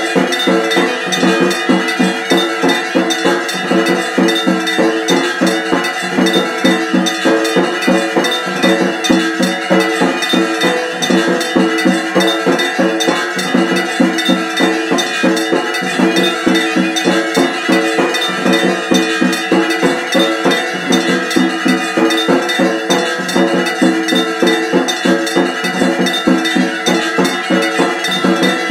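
Metal temple bells ringing with rapid, even strokes, keeping up a steady clanging beat over a sustained ringing tone.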